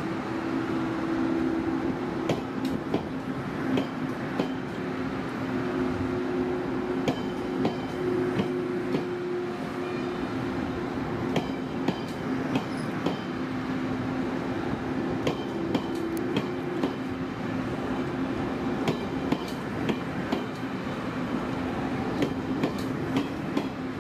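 Passenger train rolling through the station, its wheels clicking over rail joints and points, with a steady two-note hum throughout.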